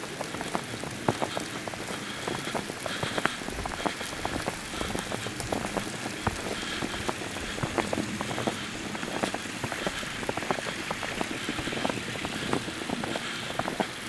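A snowstorm's falling snow pattering: a dense, irregular crackle of many small hits that runs on without a pause.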